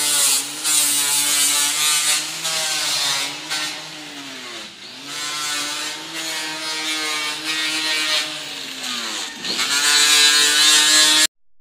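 Electric angle grinder running against stainless steel, a high motor whine over a harsh grinding hiss. The motor pitch sags twice as it is pressed harder into the metal and comes back up as the load eases.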